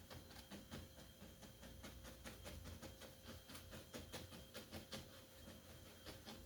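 Near silence with faint, irregular scratchy ticks of a paintbrush dabbing and stroking acrylic paint on canvas, several a second, over a low steady hum.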